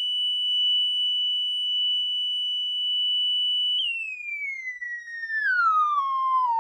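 A Samsung Galaxy Z Fold 3's loudspeakers playing a steady high test tone. About four seconds in, the tone starts a smooth downward frequency sweep, falling in pitch.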